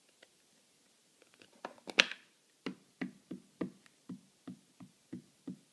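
A StazOn ink pad dabbed repeatedly onto a clear stamp on an acrylic block to ink it, making short dull taps about three a second, after a single sharp knock about two seconds in.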